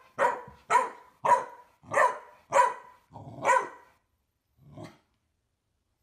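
A dog barking in a quick run of about six short, high-pitched yaps, roughly 0.6 seconds apart, then one faint bark about five seconds in.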